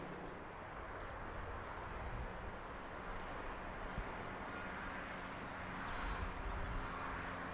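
Steady outdoor ambience: an even hiss with a low rumble underneath.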